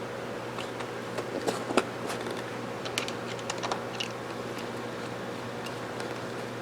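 Light clicks and taps of small rifle parts being handled and fitted during reassembly of a lever-action rifle, scattered through the first four seconds, over a steady low hum.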